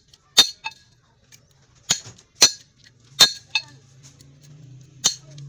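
Hammer blows ringing on the steel stator of a washing machine motor as its copper windings are cut out, about seven sharp metallic strikes at an irregular pace, some in quick pairs. A faint low hum comes in near the end.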